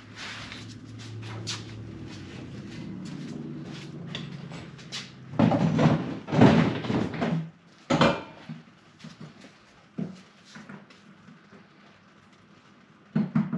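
Handling clatter of workshop gear as the oil drain bucket is fetched: scattered knocks and clicks, with a loud rattling clatter for about two seconds midway and a sharp knock near the end. A low steady hum sits underneath for the first few seconds.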